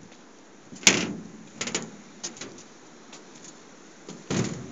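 A few sudden thumps and knocks at uneven intervals, the loudest about a second in, smaller clicks after it and another heavy thump near the end.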